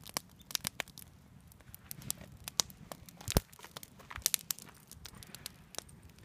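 Wood campfire crackling, with irregular sharp pops scattered through it.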